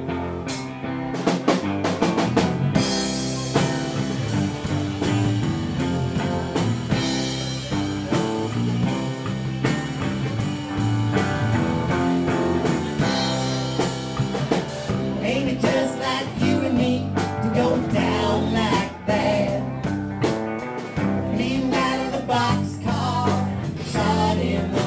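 Background music: a band song with drum kit and guitar over a steady beat.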